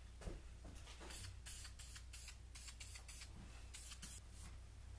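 Aerosol spray paint can hissing faintly in a quick series of short bursts, about three a second, as paint is sprayed onto the welded exhaust manifold.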